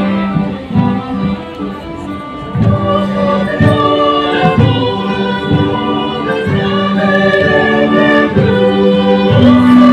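Live Lithuanian folk dance music: a small band plays a tune in held notes while a group of voices sings along.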